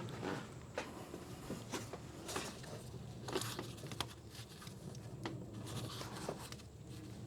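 Faint, irregular light clicks and rustles of hands handling a coolant hose and parts in a pickup's engine bay, over a low steady hum.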